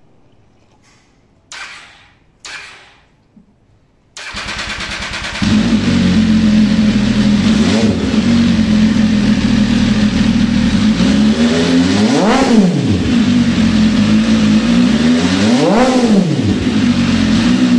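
MV Agusta Dragster 800 RR's 798 cc inline three-cylinder engine, breathing through a blued titanium triple-pipe exhaust, is started. The starter cranks for about a second, then the engine catches and settles into a steady idle. It is then blipped twice, revving up and dropping back to idle.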